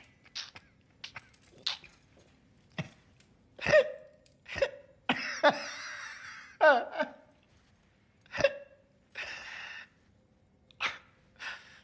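A person's voice making short, separate hiccup-like bursts, several falling in pitch, with two longer hissing stretches about halfway through and near the end.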